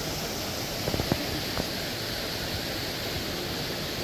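Waterfall rushing, a steady dense roar of falling water, with a few short knocks about a second in.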